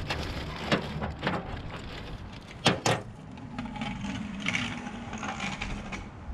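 Rustling and small clinks of bolts and washers being picked out of a plastic bag, with two sharp clicks close together near the middle. A steady low hum runs through the second half.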